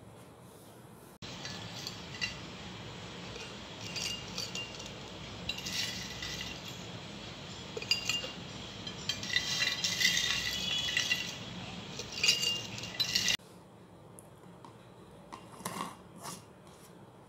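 A metal spoon clinking against a glass jar as crisp cookies are dropped in and rattle against the glass, with sharp clinks that ring briefly. The clinking starts abruptly about a second in and stops suddenly, and a few soft clicks follow as the jar's screw lid is put on.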